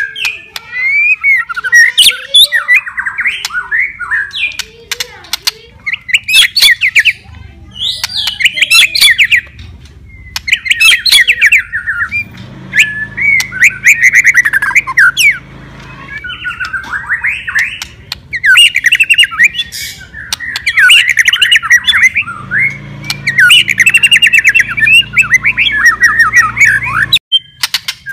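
White-rumped shama (murai batu) singing in full, vigorous 'gacor' form: loud, varied phrases of rapid trills, whistles and harsh chattering notes, each a couple of seconds long with short pauses between.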